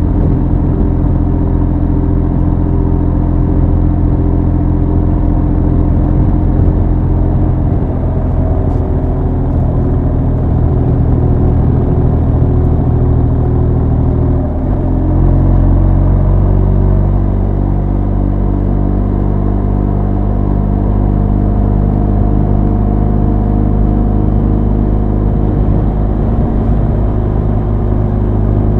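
Motorcycle engine and exhaust running steadily at cruising speed, heard from the rider's seat. About halfway through there is a brief dip and the engine note changes, then it runs on steadily.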